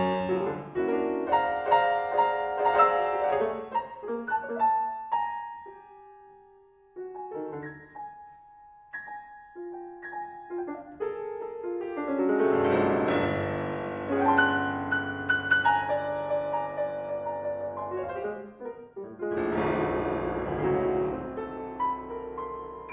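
Solo piano playing a contemporary classical piece drawn from Taiwanese folk tunes. Full chords at first thin out to sparse, quiet single notes, then about halfway through it swells into a loud, dense passage; after a brief break a second loud stretch follows near the end.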